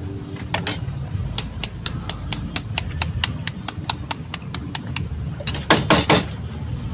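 Spoon tapping on a balut duck egg's shell to crack it: a string of light, quick clicks, about four a second. A few louder knocks and cracks come near the end.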